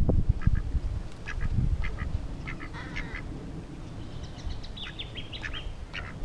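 Ducks quacking in a string of short, separate calls.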